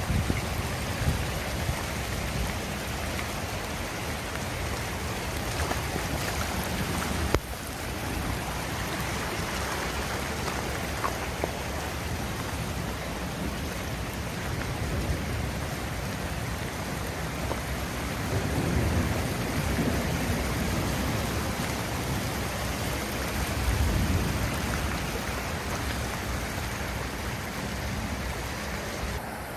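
Heavy rain falling and water running, a steady hiss with low swells of wind buffeting the microphone, and a sharp click about seven seconds in.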